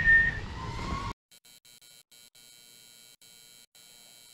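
A person whistling, one note held high and then dropping to a lower one, with wind rumbling on the microphone. About a second in it cuts off sharply to a faint electronic buzz that stutters on and off.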